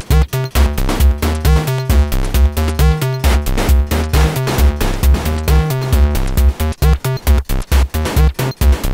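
A Reaktor Blocks synth patch sequenced in Maschine playing a looping electronic pattern: regular low kick-like thumps under a fast, stepping synth bass line, at a steady techno tempo.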